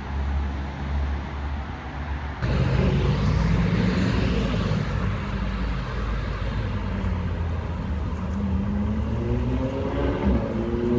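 Road traffic: car engines running with a low rumble, louder from about two seconds in, and a vehicle accelerating near the end, its engine pitch rising.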